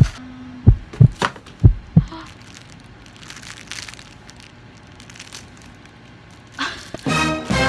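Handling knocks: about six sharp knocks and taps in the first two seconds as a pocket survival tool is handled and tapped, then quiet. Near the end, music starts.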